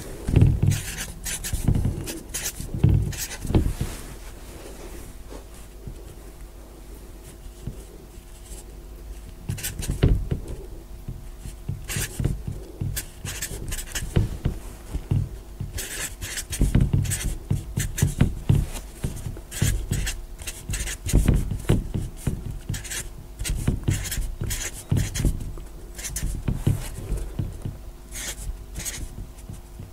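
Marker pen writing numbers on a board: short scratching strokes in quick clusters, with a pause of a few seconds about four seconds in.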